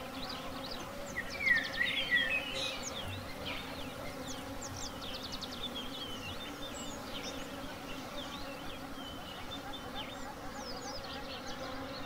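Honeybees buzzing steadily around an open hive, a continuous low hum, with many short high chirps over it and a brief louder sound about a second and a half in.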